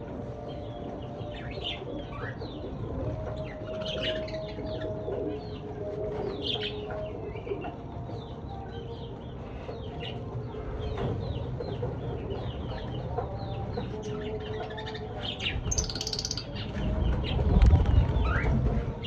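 Lovebirds chattering in a steady stream of short, shrill chirps, with some longer lower held notes among them. Near the end a louder low rustling rumble comes in over the calls.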